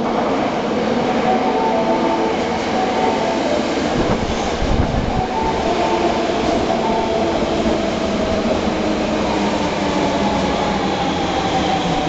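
Kita-Osaka Kyuko 8000 series subway train pulling into an underground station platform: a steady, loud rumble of wheels on rail, with the motors' whine falling slowly in pitch from about six seconds in as the train brakes.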